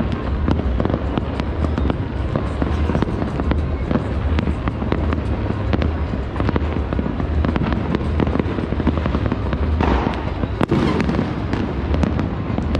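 Fireworks and firecrackers going off all across a city at once: a dense, unbroken crackle of pops and bangs, with one sharper bang near the end.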